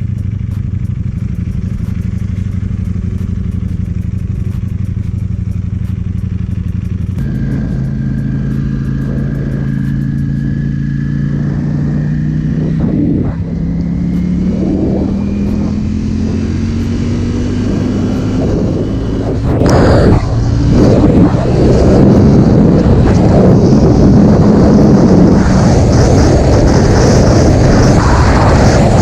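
Ducati Panigale V4S V4 engine running steadily. About seven seconds in the bike pulls away and the engine note climbs slowly as it gathers speed. From about twenty seconds in it gets louder, with a broad rush of noise over the engine.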